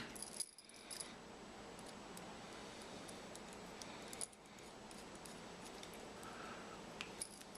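A few faint, scattered small clicks of small metal dial caliper parts being handled and fitted back together, over a steady low hiss.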